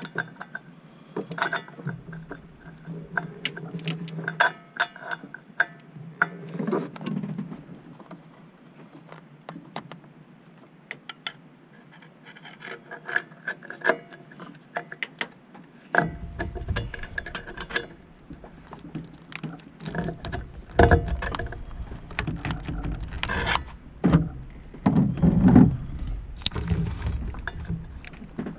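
Steel tools clicking and clinking irregularly against the EGR tube nut on the exhaust manifold as a wrench is fitted on it and levered with a pry bar to break the nut loose. Heavier knocks and thumps come in about halfway through.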